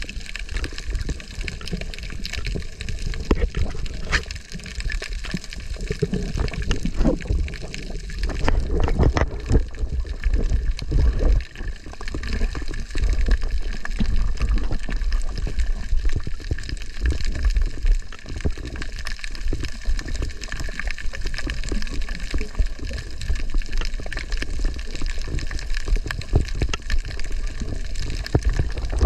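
Underwater ambience heard through an action camera's housing: a continuous muffled rush and gurgle of moving water with a low rumble, dotted with many small clicks and crackles.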